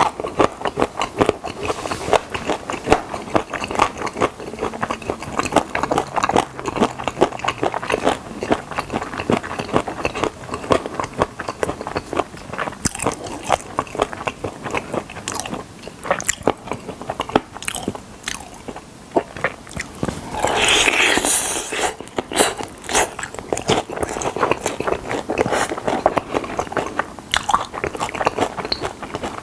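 Crunching and chewing of fried chicken drumsticks, with frequent crisp bites and mouth clicks. Just past two-thirds of the way through, a louder rush of noise lasts about a second and a half.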